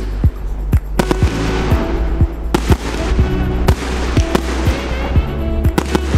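Aerial fireworks shells bursting in a rapid, irregular series of bangs, some trailing off into crackle, over background music with a deep bass.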